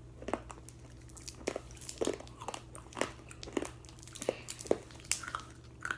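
Mouth sounds of someone eating Warheads sour hard candy: a string of short, irregular crunches and wet smacks, about two or three a second.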